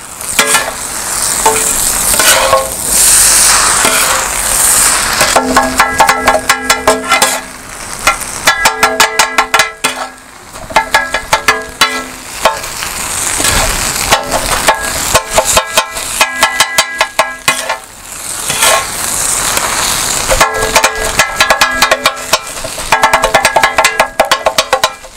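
Two metal kothu blades chopping roti on a large iron griddle pan: runs of rapid, rhythmic metallic clanging that rings on after each strike, the sound of kothu roti being chopped. Between the runs there is softer scraping and sizzling from the frying food.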